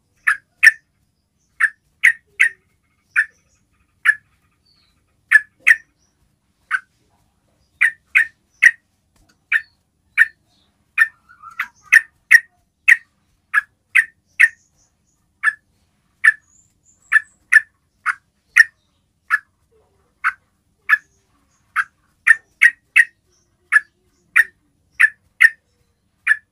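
Yellow-vented bulbul (trucukan) giving its basic call: short, sharp call notes, singly and in quick pairs, repeated steadily about one to two times a second. This call is used to lure other bulbuls into answering.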